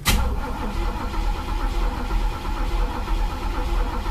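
Chevy El Camino engine being cranked by the starter, turning over steadily without firing. It starts suddenly and keeps cranking. The engine is starved of fuel: the tank has run dry behind a broken gas gauge.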